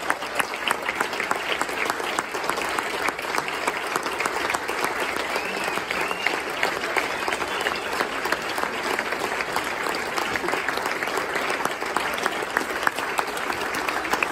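Audience applauding, a steady dense stream of many hands clapping, with a few voices calling out over it.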